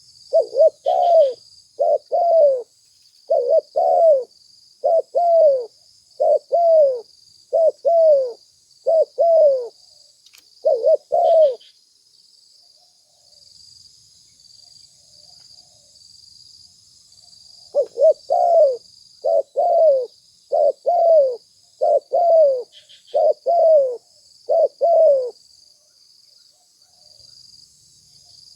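Spotted dove cooing in two bouts of about eight double-noted coos each, every note falling in pitch, with a pause of about six seconds between the bouts. A steady high-pitched cricket chirring runs underneath.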